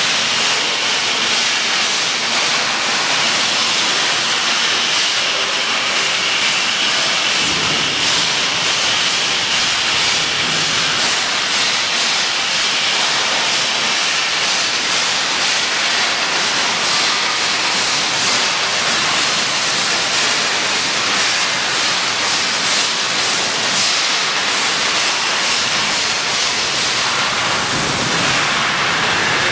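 Plasma arc welding torch on an automatic tank welding machine, running a seam on a stainless steel tank with a steady hiss.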